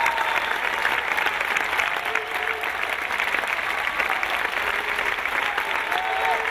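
Theatre audience applauding steadily, a dense unbroken patter of clapping.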